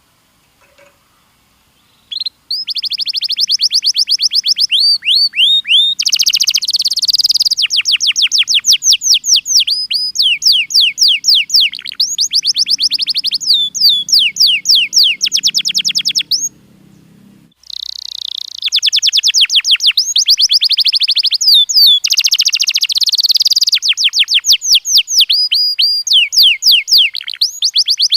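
Domestic canary singing: long runs of fast, rapidly repeated high trill notes. The singing starts about two seconds in and has a break of about a second just past the middle.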